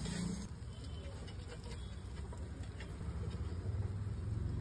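Metal spatula clicking and scraping on a hot flat griddle (tawa) as paneer cubes are pushed about and a paratha is cut into slices, a few light separate clicks over a low steady hum.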